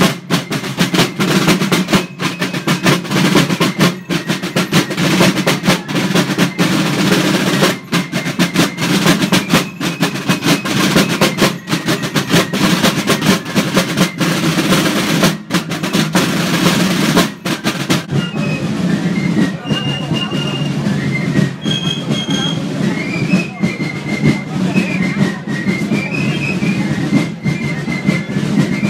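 A marching corps of snare drums playing a dense, rapid drumming cadence with rolls. About two-thirds of the way through the drumming gives way to thin high notes that step and slide in pitch, over a steady low rumble.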